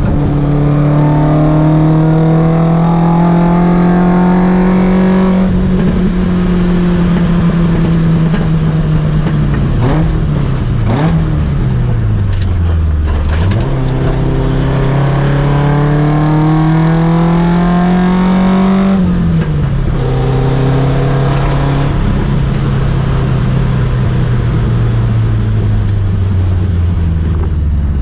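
Toyota AE86's 4A-GE inline-four on side-draft carburetors, driven under load. Engine pitch climbs slowly, drops at a shift about five seconds in, falls away as the throttle comes off, climbs again to another shift, then sinks slowly.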